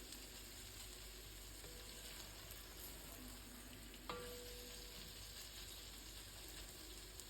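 Faint, steady sizzling of a tomato-puree and onion sauce base frying in the pan, with a single light click about four seconds in.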